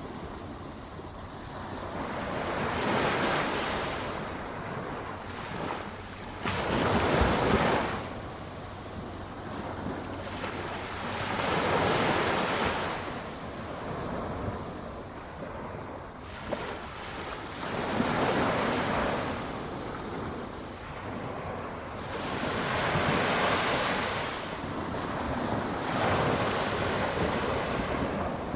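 Small waves on a flat calm ocean breaking and washing up the beach. Each soft wash comes every four to five seconds, and the sharpest break is about seven seconds in.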